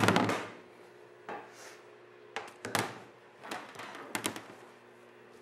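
A windscreen fillet tool working a chrome filler lock strip into a wet rubber windscreen seal. A short rubbing burst at the start is followed by a handful of sharp clicks spread over the next few seconds.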